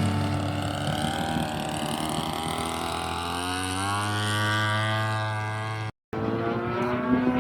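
Petrol engine of a radio-controlled model airplane running, its pitch climbing over a couple of seconds. The sound drops out completely for a moment about six seconds in, then the engine is heard again.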